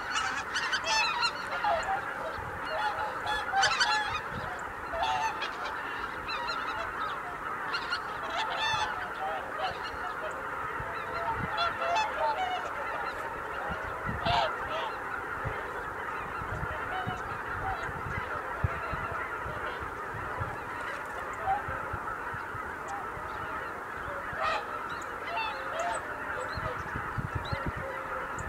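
A large flock of greater white-fronted geese calling in flight: a dense, continuous chorus of many overlapping honks, with individual calls standing out more in the first few seconds.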